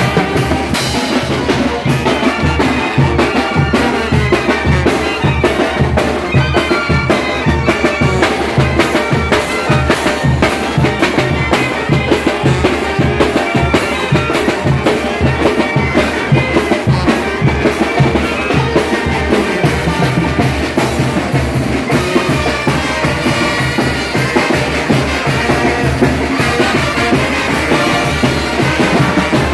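Mixtec brass band playing a chilena, with brass instruments over a steady bass drum and snare beat.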